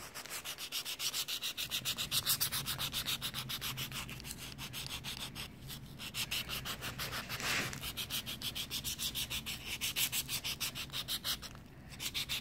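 A nail file rubbed quickly back and forth over a hammered aluminium-foil ball: a rapid, even scratching, with brief pauses about five and a half seconds in and near the end. It is the smoothing stage, filing down the ball's rough edges.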